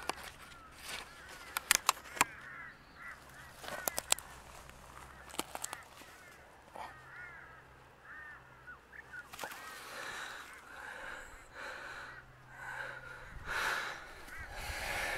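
A few sharp crackles of dry grass being trodden and handled. Birds chirp faintly in the background throughout, in short repeated calls.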